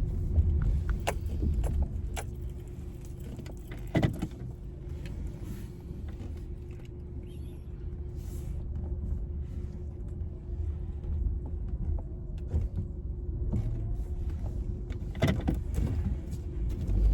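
Car running at low speed with a steady low rumble, heard from inside the cabin while backing up and maneuvering, with a few sharp clicks and knocks; the loudest click comes about four seconds in and a cluster comes near the end.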